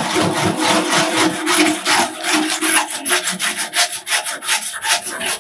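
Wire brush scrubbing the greasy painted steel side of a rolling toolbox in quick back-and-forth strokes, working degreaser into built-up grime.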